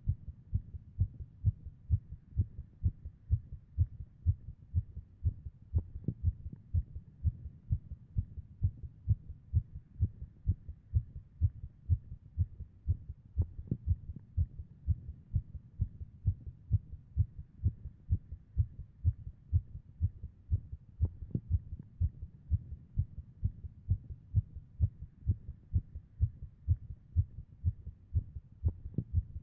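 Human heartbeat: heart sounds beating in a steady, regular rhythm of low thuds.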